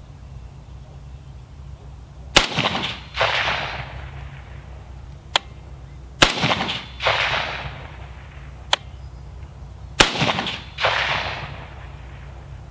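Three single shots from a Beretta ARX-100 semi-automatic rifle in 5.56 NATO, fired slowly, about four seconds apart. Each sharp crack is followed under a second later by a softer, fading second report.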